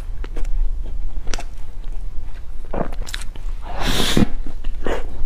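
Close-miked mukbang eating of a soft chocolate-filled cocoa bread: a bite about four seconds in, with wet chewing and mouth clicks around it, over a steady low hum.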